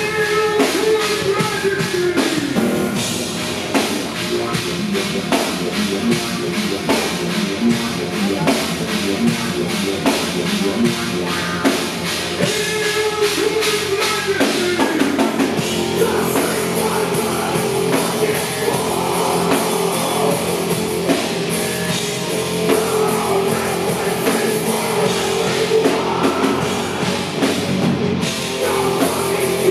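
Industrial metal band playing live, heard from within the audience: a steady drum-kit beat under distorted guitar and keyboards, with the singer's vocals at times.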